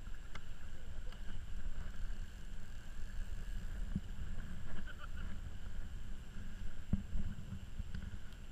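Low wind rumble on the microphone over choppy water, with a few light knocks about four and seven seconds in.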